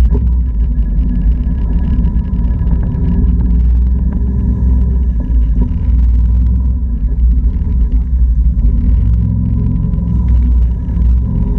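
Can-Am Outlander 650 ATV's Rotax V-twin engine running steadily as the quad is ridden through tall grass, heavy and low, with a thin steady whine above it.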